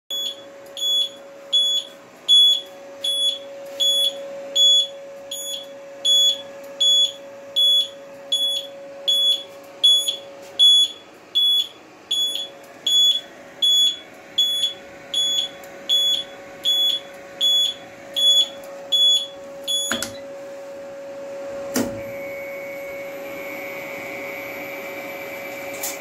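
Control panel alarm buzzer beeping, about three high beeps every two seconds, while the panel's emergency stop is pressed. The beeping stops with a click about twenty seconds in, and another click follows. A steady faint whine and a steady hum go on underneath.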